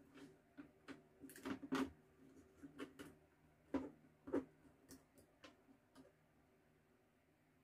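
Irregular small clicks and taps of hands handling wiring and plug-in connectors inside an opened amplifier chassis, with a few louder knocks in the middle. They stop about six seconds in, leaving a faint steady hum.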